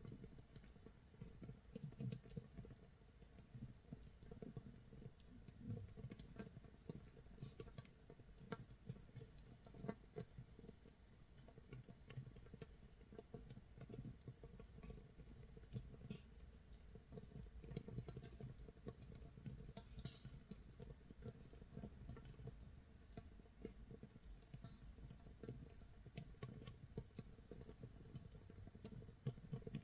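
Makgeolli base brew (mitsul) fermenting in an earthenware crock about 24 hours in: faint, dense, irregular crackling and popping as gas bubbles burst at the surface, like rain or rice crust crackling in a pan.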